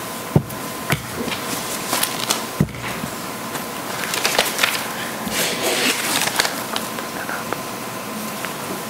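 Papers rustling and scattered knocks and clicks of handling near a microphone, over a faint steady tone.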